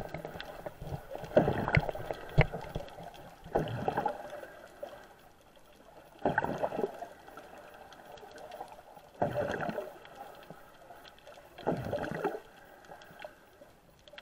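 Muffled water sounds from a snorkeler swimming, heard underwater through an action camera's waterproof case: a swishing, gurgling burst about every two and a half to three seconds, with a faint water hiss between.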